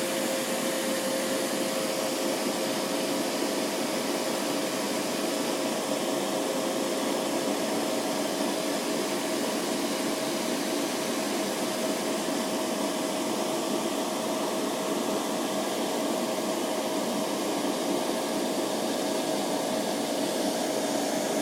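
Refrigerant recovery machine running steadily, pulling refrigerant out of an air-conditioning system. Its hum rises slightly in pitch about eight seconds in.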